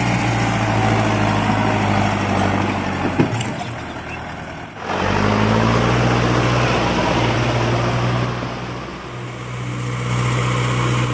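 Mahindra Arjun Novo 605 DI tractor's diesel engine running steadily at a constant pitch while the tractor works a field and muddy rice paddy. There is a short dip at a cut about five seconds in, after which it runs on as before.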